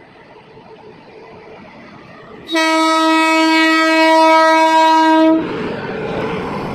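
WAP-7 electric locomotive's horn sounding one long, steady blast of about three seconds as the train pulls out, starting a little over two seconds in and cutting off sharply. It is followed by the rumble of the locomotive rolling past close by.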